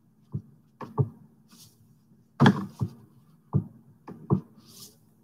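A run of about eight irregular knocks and clicks, the loudest about two and a half seconds in, with two soft hisses between them.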